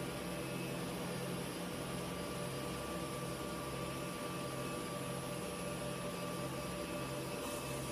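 Steady hum of running production-line machinery: motors and drives of a roller conveyor and gantry board handler, with a low drone and a few steady whining tones.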